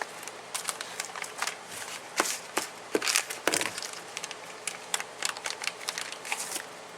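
Plastic packaging crinkling and rustling as tools are handled and unwrapped, with scattered sharp clicks and crackles.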